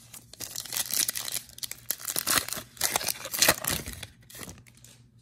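Shiny foil trading-card pack wrapper being torn open and crinkled by hand: a run of crackling rips and rustles that dies away about four and a half seconds in.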